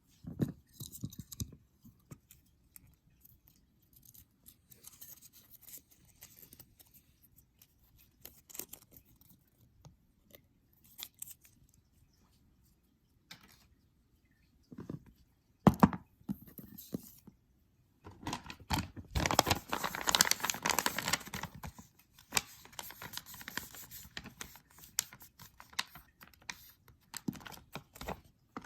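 Plastic blind bag being handled and opened: intermittent crinkling and rustling, with a denser, louder stretch of tearing about two-thirds of the way through.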